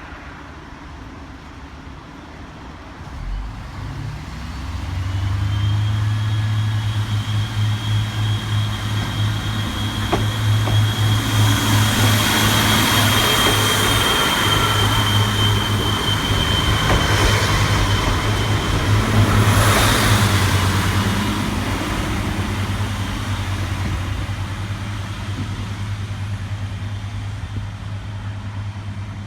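Renfe Class 592 diesel multiple unit pulling away: its underfloor diesel engines throttle up with a deep steady drone and a high whine. The sound grows loudest as the train passes and then fades as it moves off.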